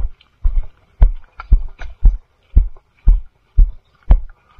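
Walking footsteps, heard as low thuds about twice a second at a brisk, even pace.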